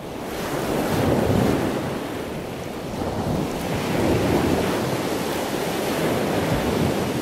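Ocean surf washing, a steady rush that swells and eases twice.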